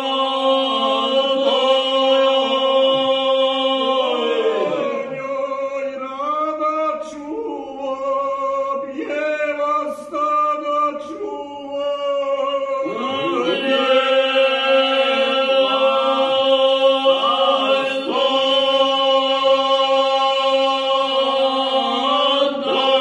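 Four men singing a traditional Dinaric Serb song a cappella, holding a steady drone chord while one voice moves above it. The held chord breaks into shorter moving phrases about five seconds in, then returns as a long sustained chord from about thirteen seconds in.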